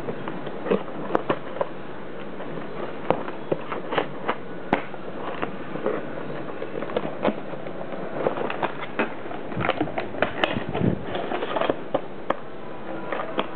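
Clear plastic packaging crinkling and a cardboard box rustling as hands unpack a toy, with many short, sharp clicks and crackles scattered throughout.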